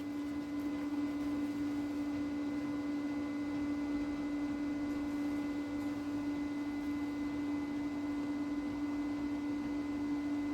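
Steady electrical hum: one strong low tone with fainter higher tones, unchanging throughout.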